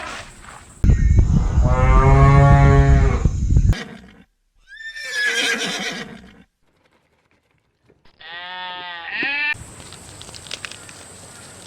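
A series of separate farm animal calls spliced one after another: a loud, long low call lasting about three seconds, then a high call that falls in pitch, then a shorter wavering call, each starting and stopping abruptly.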